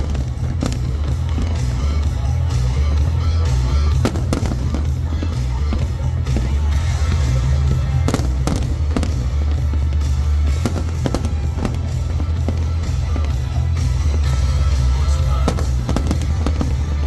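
Aerial fireworks going off in a rapid series of sharp bangs and crackles over a steady deep rumble, with music playing alongside.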